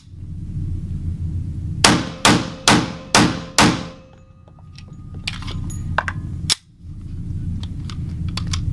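Five rapid shots from an EAA Witness pistol in 10mm, about half a second apart, each ringing out after the crack. A few faint clicks of gun handling follow.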